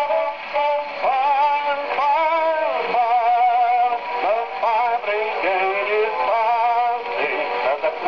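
An old acoustic 78 rpm shellac record playing through a gramophone's mechanical soundbox: a male voice sings a wavering, vibrato-laden melody with a thin, narrow tone and no deep bass.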